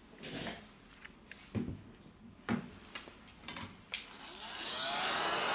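A few light knocks and clicks from handling on a work surface, then a heat gun switched on about four seconds in, its blower spinning up into a rising hiss.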